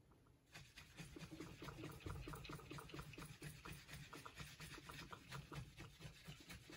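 Faint quick rubbing of a cloth against the steel face of a small anvil block, rapid back-and-forth strokes several times a second: the rust-pitted surface being polished by hand with metal polish.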